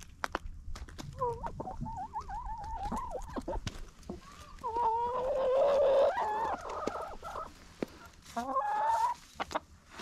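Hens clucking and giving wavering, trilling calls in three bouts, loudest about midway, while pecking at food in a tray, with sharp taps of beaks striking the tray throughout.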